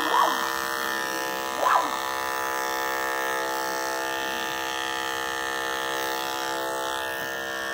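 Andis electric dog clippers running with a steady buzz while clipping a schnauzer's coat under the neck, against the grain of the hair.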